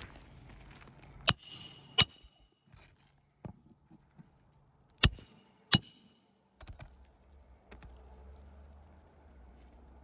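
Hammer blows driving roofing nails through a roof snake under the shingles: four ringing metal strikes in two pairs, the first pair about a second in and the second about five seconds in, with light scuffing between.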